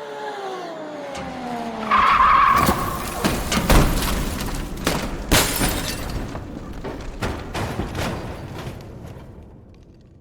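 A car skidding and crashing: a falling drawn-out tyre skid, a sharp screech about two seconds in, then a heavy impact with glass shattering and debris clattering for several seconds, dying away near the end.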